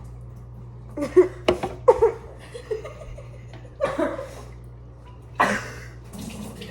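Laughter in short bursts mixed with coughing, and a loud rough retch about five and a half seconds in as one person gags and starts to vomit from a spoonful of hot sauce.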